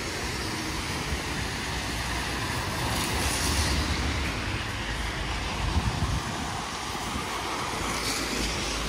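Rain and traffic on a wet street: a steady hiss with the low rumble of passing vehicles, swelling as tyres swish by about three seconds in and again near the end.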